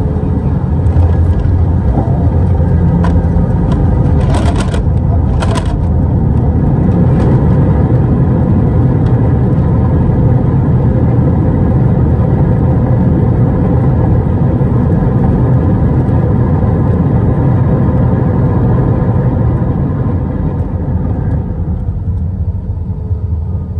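Loud, steady rumble of engine and airframe noise inside the cabin of a Delta Airbus A320 on arrival, with two short clicks about four and a half and five and a half seconds in; the rumble eases a little near the end.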